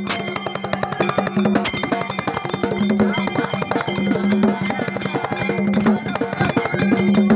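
Large hand-beaten dhol drum played in a fast, dense rhythm, with metallic jingling ringing over the drum strokes.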